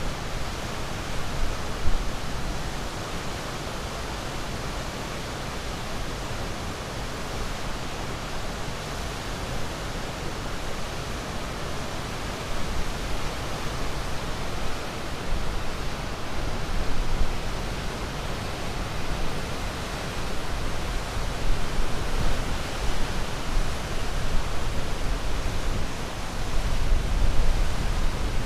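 Ocean surf: a steady rushing wash of waves with a low rumble, swelling gently in loudness now and then.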